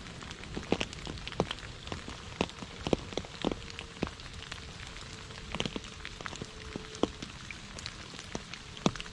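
Rain falling into a shallow puddle: a steady light patter with separate drops plinking into the water a few times a second.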